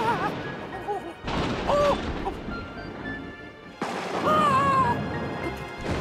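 Cartoon soundtrack: music with short sliding high notes, cut into by sudden noisy crashes about a second in and again near the four-second mark.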